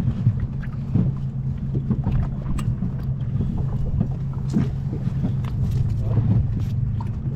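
A boat's motor running steadily with a low hum, with scattered light knocks and clicks.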